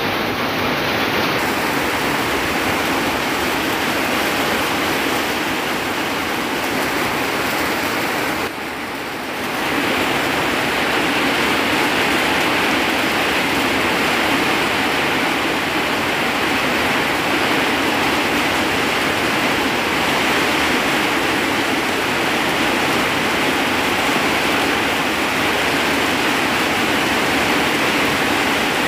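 Heavy rain pouring down steadily and splashing into standing water on the ground, dipping briefly about nine seconds in.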